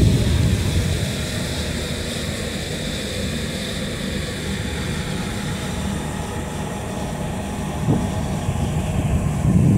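A boat's engine running steadily, a low rumble with faint whine above it, with wind buffeting the microphone that swells near the end.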